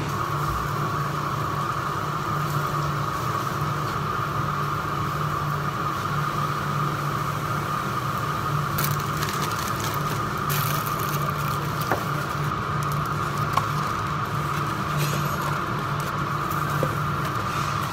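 Steady hum of commercial kitchen exhaust hood fans, with a few light clicks from tongs and takeaway boxes being handled.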